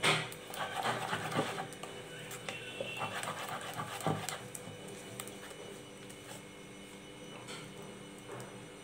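A spoon stirring thick, wet ground mung dal batter in a bowl: irregular squelching strokes, the loudest right at the start, thinning out after about five seconds.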